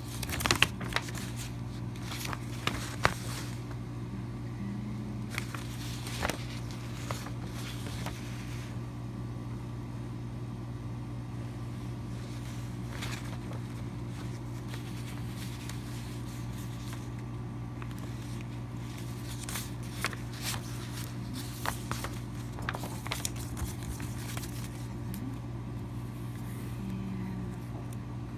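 Paper rustling and crackling as a folded paper poster from a CD album package is handled, with a few sharp clicks in the first few seconds and again near the end, over a steady low hum.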